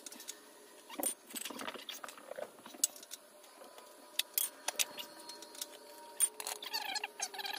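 Irregular light metallic clinks and rattles of metal parts and tools being handled while fitting an outboard motor's powerhead and midsection together.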